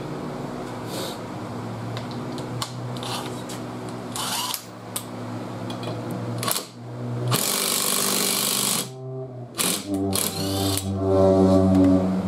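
Cordless 20-volt impact wrench run in short bursts on a large socket: a loud rattling burst of about a second and a half midway, then its motor whirring for about two seconds near the end.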